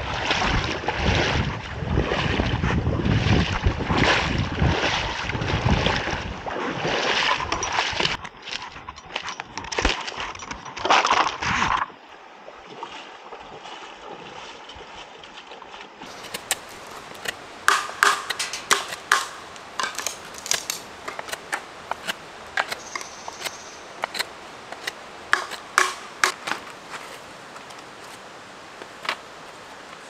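Rustling and knocking of bamboo poles being handled, loud for about the first twelve seconds. After that comes a steady creek hiss with scattered sharp clicks and knocks of sticks and pebbles being set down.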